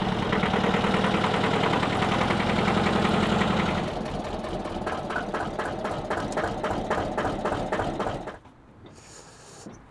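Porsche-Diesel tractor engine running steadily, dropping to a slower, quieter idle about four seconds in, then cutting off about eight seconds in.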